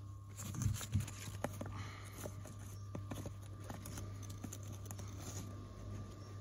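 Small river stones being handled and wedged by a gloved hand into a gap in a stone wall: two dull knocks just under a second in, then scattered small clicks and scrapes of stone on stone and soil.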